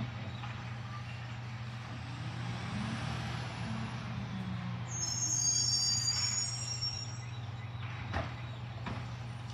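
Mack LR side-loader garbage truck's diesel engine running steadily and revving briefly, then a high squeal of its brakes as it pulls up. Two sharp knocks follow near the end.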